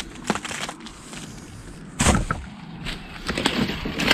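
Footsteps through dry leaf litter and brush, with twigs cracking and branches rustling against the walker, and one louder crack or thud about two seconds in.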